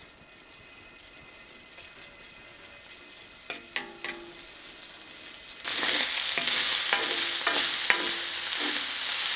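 Bacon strips sizzling in a cast-iron pan as their fat renders out, with a spatula scraping across the pan several times. The sizzle is faint at first and turns suddenly loud about halfway in.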